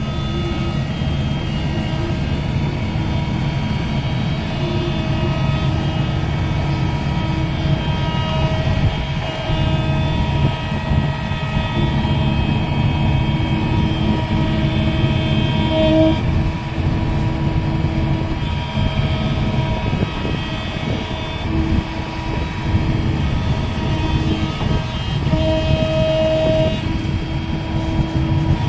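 Komatsu PC200 excavator's diesel engine running steadily while it is loaded, with a hydraulic whine whose steady tones come and go.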